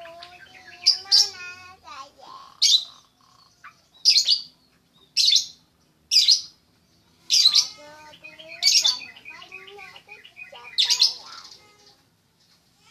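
Yellow-vented bulbul (trucuk) calling repeatedly: a loud, sharp high chirp roughly every second, with lower warbling notes in between.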